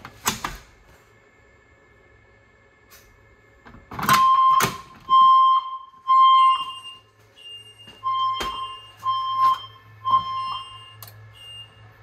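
A manual fire alarm pull station's handle clicks as it is pulled, then the fire alarm speaker strobes sound the temporal-three evacuation tone: three loud, steady beeps, a pause, then three more, with sharp clicks and short higher beeps mixed in.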